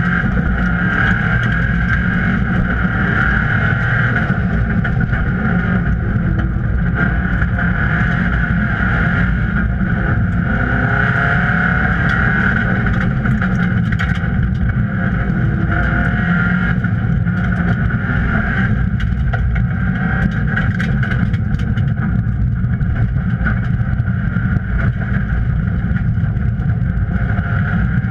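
Subaru rally car's flat-four engine running hard, with its pitch rising and falling through the gears, heard inside the stripped-out cabin along with tyre and road noise.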